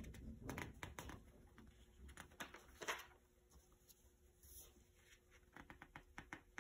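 Magazine pages being turned by hand: faint paper rustles, the loudest about three seconds in, then a few soft ticks near the end.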